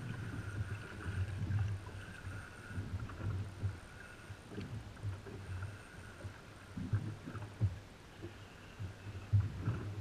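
Sea water slapping and lapping against the hull of a drifting jet ski, in irregular low thuds, with a faint steady high whine underneath.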